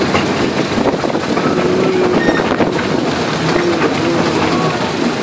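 Miniature railway train running along the track, heard from an open carriage: a loud, steady rattle and clatter of the wheels and carriages, with short faint whines coming and going.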